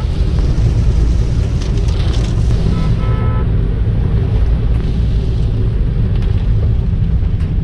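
Steady low rumble of a car's engine and tyres heard from inside the cabin while driving on a rain-wet road.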